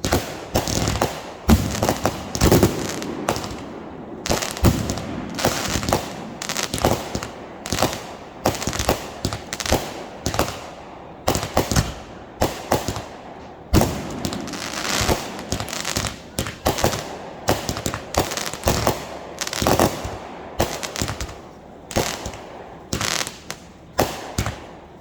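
Fireworks going off in quick succession: a dense, irregular run of sharp bangs, often several a second, each followed by an echoing tail.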